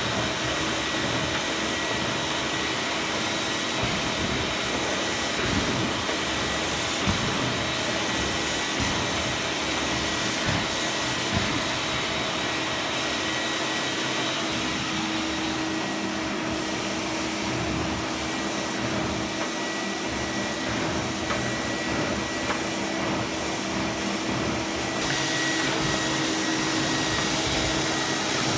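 Zelmer Wodnik 5 Profi System 619.5.B51E vacuum cleaner running in carpet-washing mode, its motor giving a steady whine while the washing nozzle is drawn over a carpet runner. The tone of the whine shifts a little partway through and again near the end.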